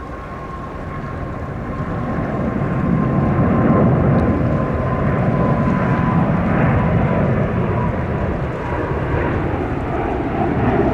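Jet airliner's engines passing close: a rumble that builds over the first few seconds and then holds, with a high whine that slowly drops in pitch.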